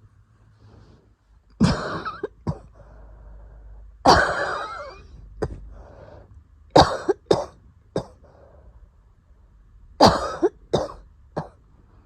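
Asthmatic coughing in fits during an asthma attack: about a dozen harsh coughs in clusters of one to three, with wheezy breaths drawn between them.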